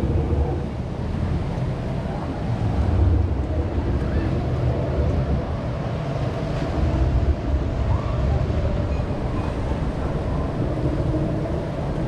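Water rushing and sloshing around a round river-rapids raft as it floats down the channel, with wind rumbling on the microphone.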